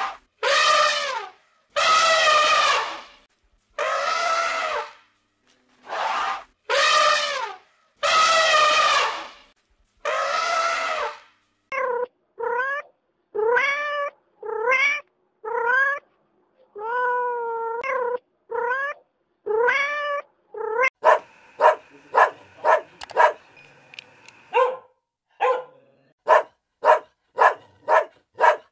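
A run of animal calls: first about ten long, wavering calls, then a cat meowing over and over, then a puppy barking quickly, about two barks a second, over the last few seconds.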